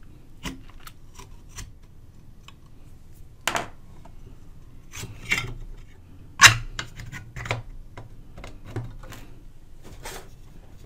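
Metal IF transformer shield can being handled and fitted onto a radio chassis: scattered clicks and knocks of metal on metal with faint rubbing between, the loudest knock a little past halfway.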